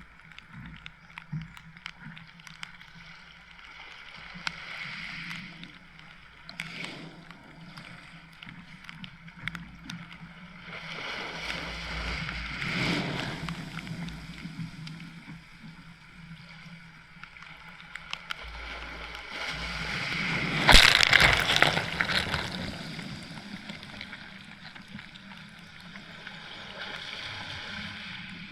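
Small waves washing up and sloshing on a beach, swelling twice, with the second wash, about two-thirds of the way in, the loudest. Scattered sharp ticks of raindrops hitting the camera run through it.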